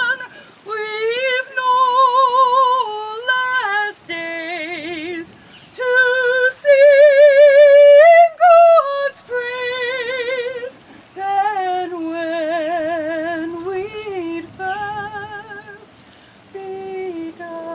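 A woman singing a slow solo song unaccompanied, holding long notes with a wide vibrato and pausing briefly for breath between phrases.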